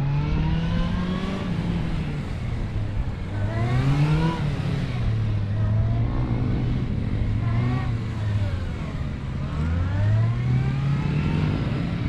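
Honda CB400SF's inline-four engine revving up and dropping back every few seconds, as the motorcycle accelerates and slows through tight turns around cones.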